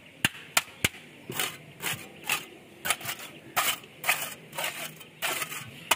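Steel mason's trowel scraping and slapping wet concrete as the sloped top of a trapezoidal footing is shaped, with sharp irregular taps about two or three a second.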